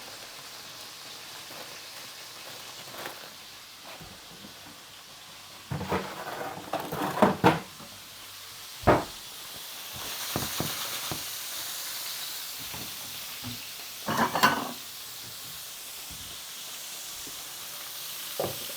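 Peas frying in hot fat in a pan, a steady sizzle that grows louder about halfway through. A utensil clatters and knocks against the pan several times, in a cluster a little after six seconds, once near nine seconds and again around fourteen seconds.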